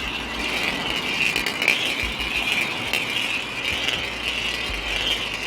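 A marble rolling and rattling steadily along a homemade marble run of tubes and flat surfaces, with many small clicks as it goes.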